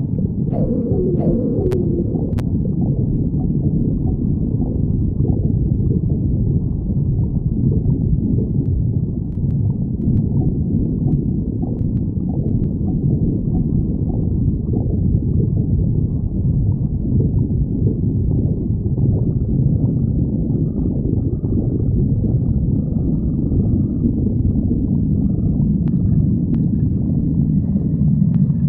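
Human stomach growling: continuous low gurgling and rumbling, with a few short squeaky gurgles that bend up and down in pitch in the first couple of seconds.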